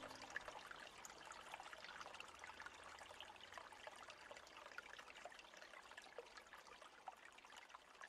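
Very faint trickling water: a thin hiss dotted with many small irregular ticks, with no speech or music.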